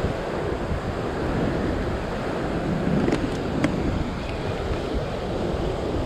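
Surf breaking and washing against a rock ledge, with wind buffeting the microphone. A few light clicks come about halfway through.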